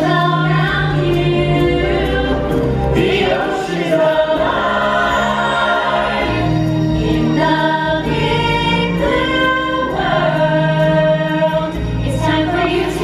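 A song from a live stage musical: a chorus of voices singing over backing music with long held low notes.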